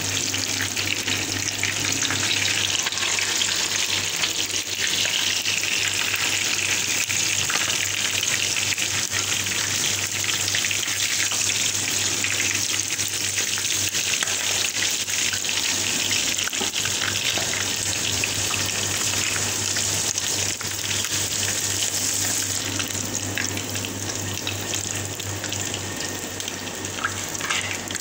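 Fish steaks deep-frying in hot oil in a pan, a steady sizzle that eases off over the last few seconds as the pieces are lifted out.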